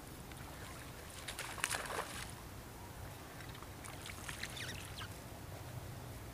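Quiet lake ambience from a kayak: a brief cluster of clicks and rustles about a second and a half in as fishing rod and tackle are handled, and a few distant waterfowl honks around four to five seconds in.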